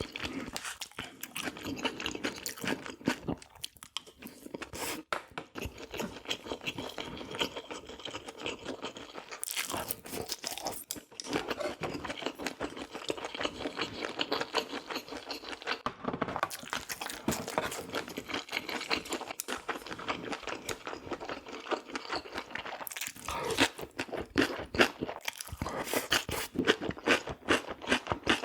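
A person chewing and crunching food close to the microphone: a steady run of small, wet crunches and mouth sounds, growing denser and louder near the end.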